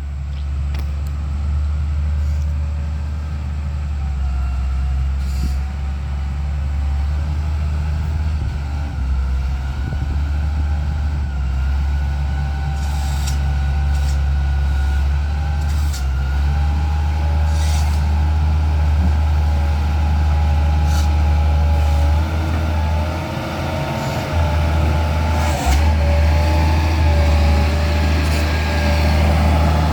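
Heavy diesel vehicle engine running steadily with a deep hum and a wavering whine, with a few short hisses.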